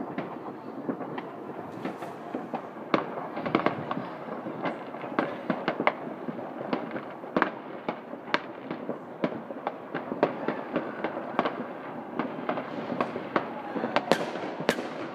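New Year's Eve fireworks and firecrackers going off across a city: many distant bangs running together into a steady crackle, with sharper, louder reports every second or so, several close together near the end.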